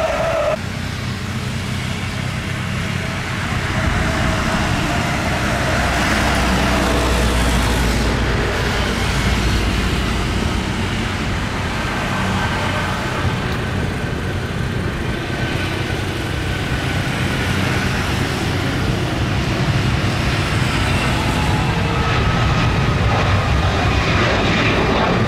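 Airbus A330 jet engines at take-off power through the take-off roll and lift-off: a loud, steady rush of engine noise with a faint high whine.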